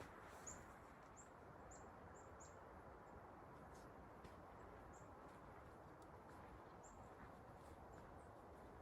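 Faint bird chirps: short high notes that dip slightly in pitch, about five in quick succession in the first couple of seconds, then a few scattered ones, over a steady low hiss.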